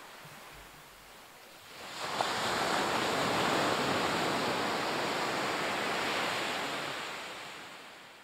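Ocean surf: faint wash at first, then a loud, even rush of water noise that swells about two seconds in, holds, and fades away near the end.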